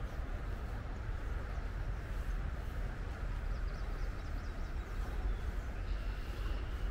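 Steady outdoor background of low rumble and hiss, with a bird's quick run of high chirps about halfway through and another high bird call near the end.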